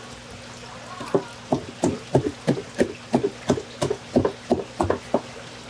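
Stiff wooden-handled brush scrubbing mud off a raw sea anemone on a wet surface, in quick short strokes about three a second, starting about a second in.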